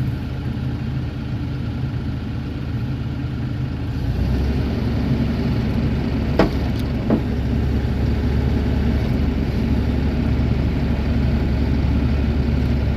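Bobcat E42 mini excavator's diesel engine running steadily under hydraulic work, its note changing about four seconds in. Two short, sharp knocks follow a little past halfway, under a second apart.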